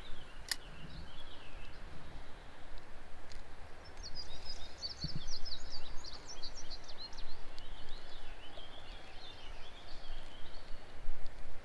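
A songbird singing a quick, jumbled run of high chirps starting about four seconds in, followed by softer chirping. Underneath is a faint low rumble, and there is a single sharp click near the start.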